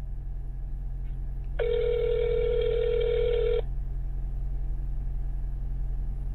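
Telephone ringback tone heard through a phone's speaker: one steady two-second ring about one and a half seconds in, the outgoing call ringing at the other end before anyone picks up. A steady low hum runs underneath.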